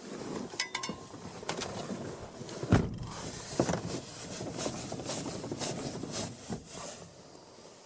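Irregular clunks, clicks and rustling from the car being handled before its engine is started, with one sharp knock about three seconds in.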